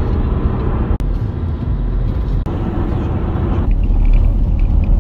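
Steady rumble of road and engine noise heard from inside a car moving at highway speed. It breaks off for an instant twice, about a second and two and a half seconds in, and its tone shifts abruptly near the end.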